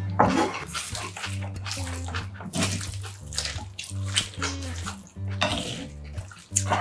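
Wooden spoon stirring and mixing a sea squirt hoedeopbap (rice, shredded vegetables and vinegar-gochujang sauce) in a ceramic bowl: wet squelching and scraping in irregular bursts, over soft background music.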